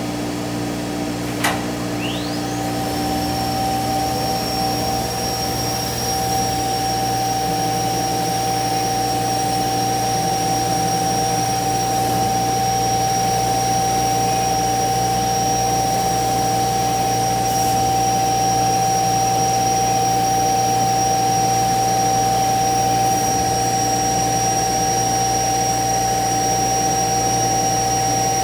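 CNC router spindle spinning up about two seconds in, its pitch rising to a high whine that then holds steady. Under it runs the steady drone of a vacuum blower with a constant hum, and there is a sharp click just before the spin-up.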